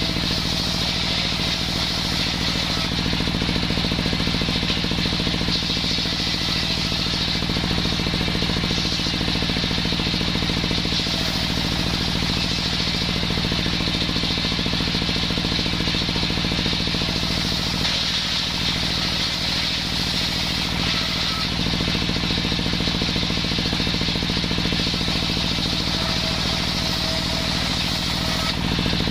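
Homemade engine-driven circular saw running steadily, its engine note even throughout, with a brief dip about two-thirds of the way through.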